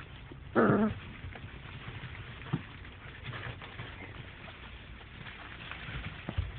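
A month-old puppy gives one short, pitched yelp about half a second in, over faint scattered ticks and patter.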